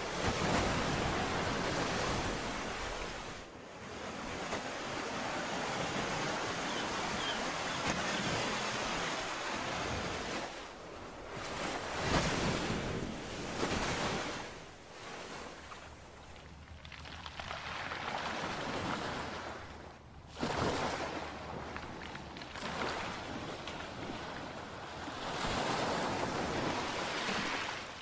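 Sea waves washing in: a rushing surf noise that swells and falls back every few seconds.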